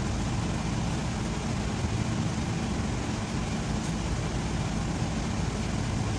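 Steady low engine rumble, running evenly without change.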